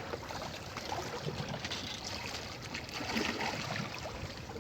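Water trickling and lapping at the rocky shoreline, a steady, noisy wash with a few faint ticks.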